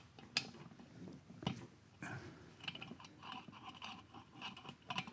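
Faint clicks and short metallic clinks of hand tools and small steel parts being handled on a BSA Starfire engine, with a quicker run of light clinks in the second half.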